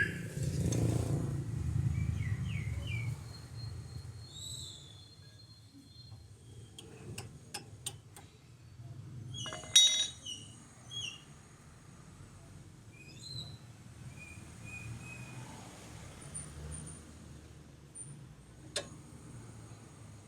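Workshop sounds during a repair. A few sharp clicks are followed about halfway through by one loud metallic clink that rings on briefly, and there is another click near the end. Birds chirp now and then in the background.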